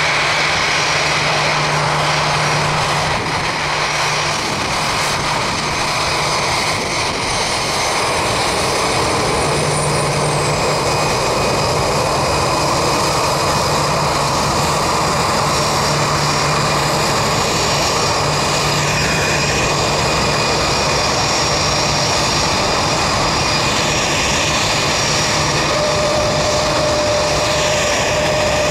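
Airbus A319's jet engines running at taxi power as the airliner rolls by: a steady rush with a high whine held on several steady tones. A further steady tone joins near the end.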